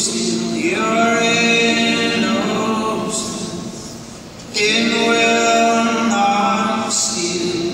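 Several voices singing a slow song together in two long, held phrases, the second beginning about halfway through.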